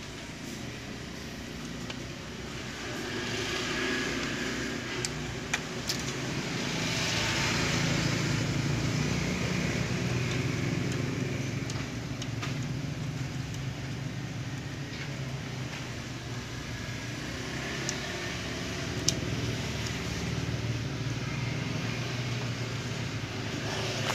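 Steady rumble of road traffic, swelling for several seconds a few seconds in, with a few light clicks from TV panel parts being handled and fitted.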